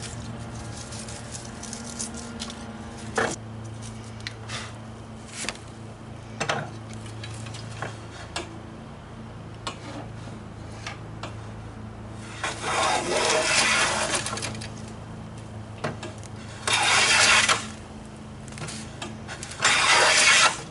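Stanley No. 7 jointer hand plane pushed along a poplar board in three strokes, each a scraping swish of the iron cutting a shaving; the first is about two seconds long and starts about twelve seconds in, the other two are about a second each. Before them come scattered clicks and knocks of handling the plane and wood, over a steady low hum.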